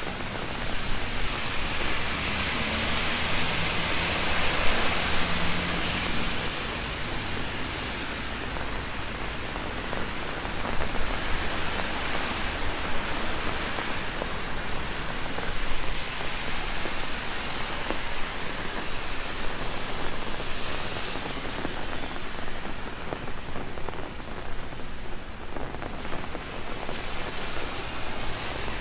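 Heavy rain falling on an open umbrella and the ground around it: a steady, dense hiss that swells and eases a little.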